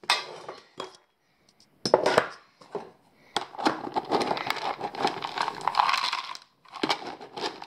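Dry dog kibble rattling as it is scooped and poured from a plastic scoop into a container: a few separate clicks first, then a dense rattle of pellets from about three seconds in, pausing briefly near the end.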